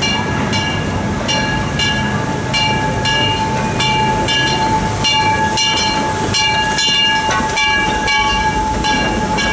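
Disneyland Railroad steam train rolling into the station, with a running rumble. A ringing strike repeats about twice a second, typical of the locomotive's bell rung on arrival, over a steady squealing tone.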